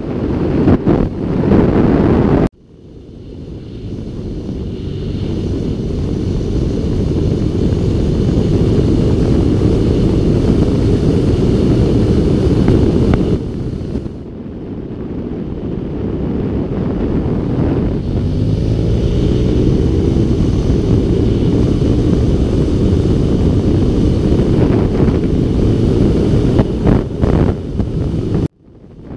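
Heavy wind rumble on the microphone of a camera riding on a moving motorcycle, with the motorcycle's engine underneath. The sound drops out suddenly about two and a half seconds in and again near the end, with a smaller dip around halfway, and swells back over a few seconds each time.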